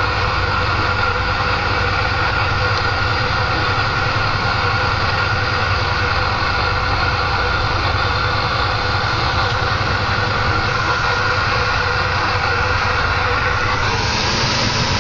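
Kenworth T2000 semi truck heard from inside the cab: a steady run of diesel engine and road noise, brightening slightly near the end.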